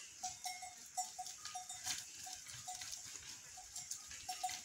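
Bells on a walking flock of sheep and goats clinking faintly and irregularly, the same short ringing note over and over, with scattered light clicks.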